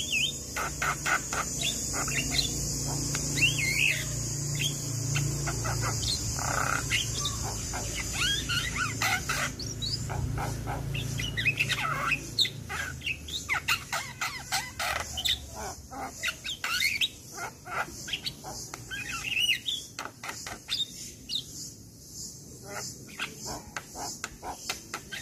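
Javan myna (jalak kebo) singing a fast, varied stream of chirps, whistles and rising and falling notes, thinning to shorter, more spaced calls near the end.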